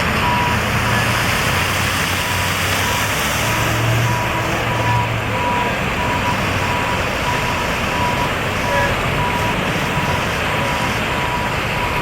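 Floodwater rushing steadily in a swollen river, with a short high beep repeating evenly over it.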